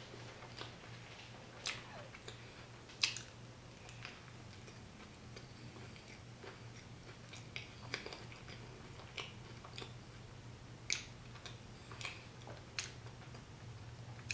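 Close-miked chewing of a bison cheeseburger: irregular mouth clicks, loudest about three seconds in. A steady low hum runs underneath.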